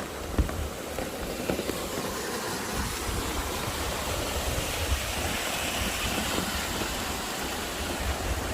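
Steady rain falling, an even hiss with scattered drop ticks, over an irregular low rumble.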